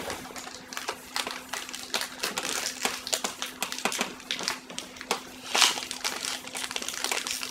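Chalk writing on a blackboard: a run of irregular scratches and taps, over a steady hum.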